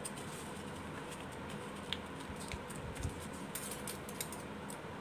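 Thin craft paper being folded and creased by hand, with soft rustles and a few small crisp crackles, clustered about three and a half to four seconds in, over a faint steady hum.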